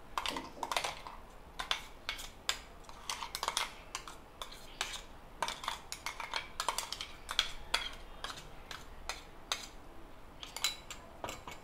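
Metal spoon clinking and scraping against steel utensils in quick, irregular taps while beetroot paste is scooped out.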